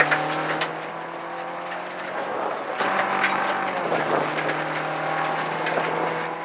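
Toyota RAV4 rally car's engine running hard at speed on a rally stage, heard from inside the car. Its pitch steps up and down a few times, over a steady rushing hiss of tyres and road.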